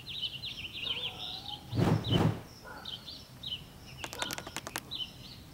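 Small songbirds chirping and trilling over and over, with a dull low thump about two seconds in and a quick run of sharp clicks a little after four seconds.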